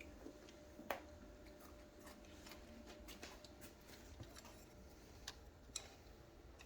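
Near silence broken by a few light clicks and taps of a spoon and dishes being handled while food is served, the sharpest about a second in and two more a little after five seconds.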